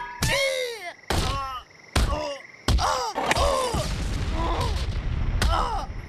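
Cartoon slapstick fall: a body slamming into rock about five times, each hit followed by a short pained yelp that drops in pitch, with a heavier crash and low rumble of a cartoon dust cloud from a little under 3 seconds in.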